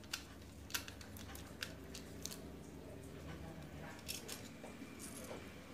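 Small, irregular clicks and scrapes of a screwdriver working the terminal screws of a plastic timer socket, with a wire end handled at the terminals, about half a dozen sharp ticks scattered through.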